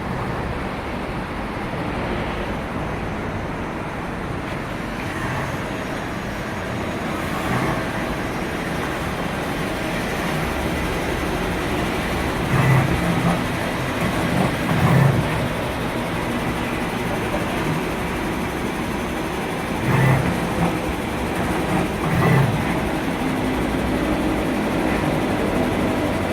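1988 Okuma LB-9 CNC lathe running a test cycle: a steady mechanical hum, with several brief, louder low surges in the second half.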